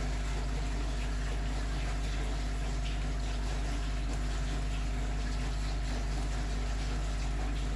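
Steady hum of running equipment with water noise in a recirculating aquaculture fish-tank system. No alarm sound is heard.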